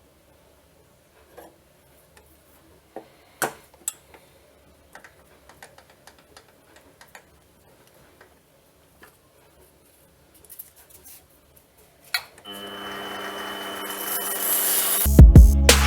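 Scattered light clicks and knocks of metal tools and parts being handled, with one sharper knock about three and a half seconds in. From about twelve seconds an ambient music track fades in, and it is loud in the last second.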